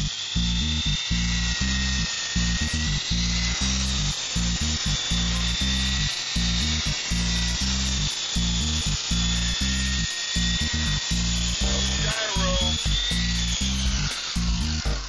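Background music with a steady beat over the high, steady whine of a Honey Bee electric RC helicopter's motor and gears in flight. The whine wavers in pitch near the end.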